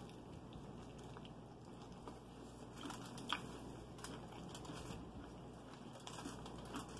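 Faint chewing and crackling of crispy fried chicken being bitten into and torn apart by hand, with a few small crunches.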